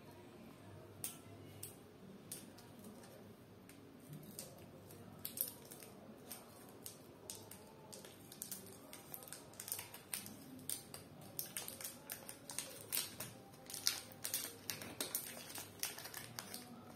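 A Cadbury Dairy Milk bar's plastic wrapper being opened: snipped with scissors, then crinkled and peeled back. Scattered clicks early on give way to dense crackling of the wrapper in the second half.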